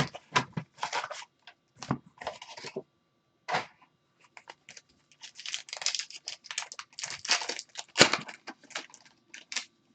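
Trading-card pack wrappers and cards being handled: a run of short tearing, crinkling and sliding sounds with brief pauses. There is a sharp snap about eight seconds in.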